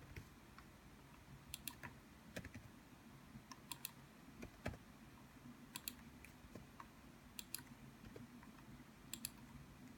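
Faint, scattered clicks of a computer keyboard and mouse, a few at a time and some in quick pairs, over a low steady hum.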